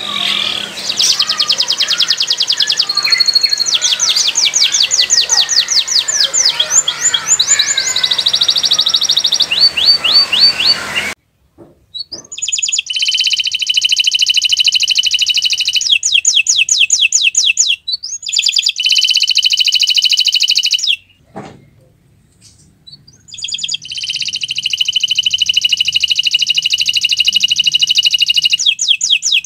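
Domestic canary singing a long, varied song of fast chirping trills and steady rolling notes. The song breaks off twice for a second or two.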